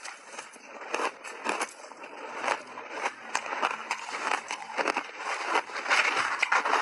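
Close-miked chewing of refrozen shaved ice: dense, irregular crunching that grows louder toward the end.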